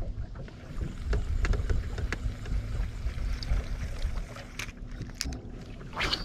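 Steady low rumble and hum of a fishing boat on the water, with scattered light clicks and knocks and a brief louder rush about six seconds in.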